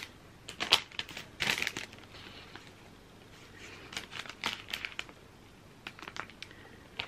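Thin plastic ice-cream wrapper crinkling as it is handled and turned over, in several short bursts.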